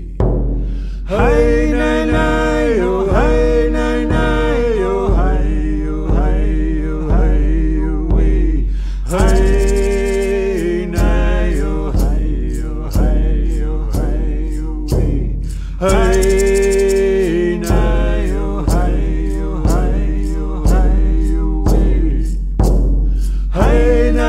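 Music: voices chanting a song in vocables ("hey, nay, nay, you") over a steady beat about once a second.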